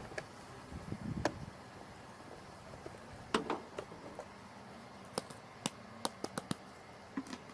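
Handling noise: a series of short, sharp clicks and light knocks at irregular intervals, the loudest about three seconds in and a quick cluster toward the end.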